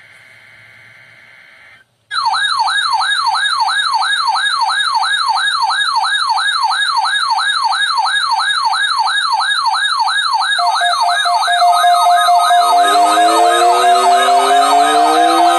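Faint radio hiss, then a couple of seconds in a loud electronic siren alarm starts, warbling up and down about three times a second. From about ten seconds in, steady alert tones and slower rising and falling sirens join it, so several alarms sound at once.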